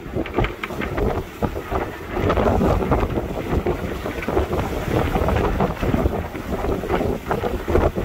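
Wind of about 30 knots buffeting the microphone aboard a sailboat under way, in uneven gusts, with the rush of water along the hull beneath it.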